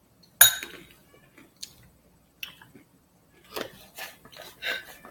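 Handling noises while mixing slime: a sharp knock about half a second in, then scattered small clicks and a stretch of scraping and rustling near the end.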